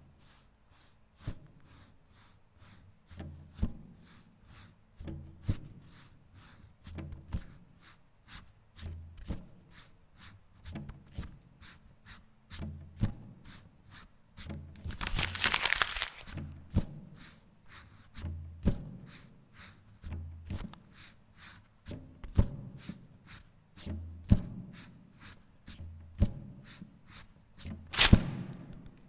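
Paper percussion: an even rhythm of sharp paper clicks over regular low thumps. About halfway a burst of paper noise lasts about a second, and a single loud hit comes near the end.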